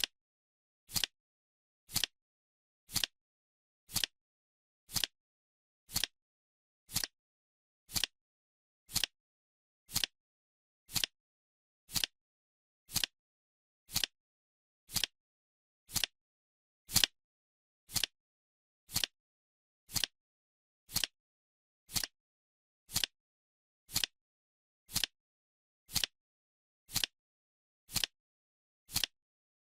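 A clock-style tick once every second, each a short sharp click with silence between, marking the countdown of a timer.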